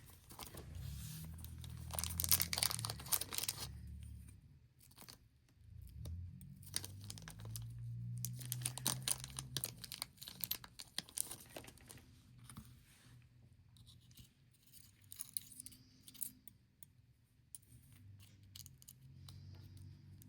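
Irregular scraping, rasping and crackling from small parts and tools being handled on a work surface, coming in bursts, loudest near the start and again a few seconds later.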